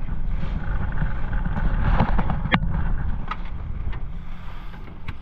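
Boat's outboard motor running steadily at trolling speed, with wind buffeting the microphone. A few sharp knocks sound around the middle and just before the end.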